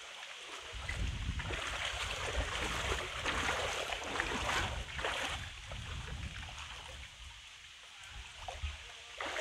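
Shallow floodwater sloshing and splashing as people wade through it on foot, louder in the first half and quieter near the end.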